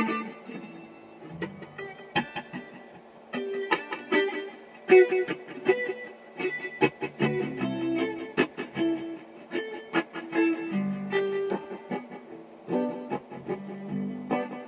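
Electric guitar played solo. A chord is struck hard at the very start, then a loose, jamming run of picked single notes and short chord stabs with small gaps between them.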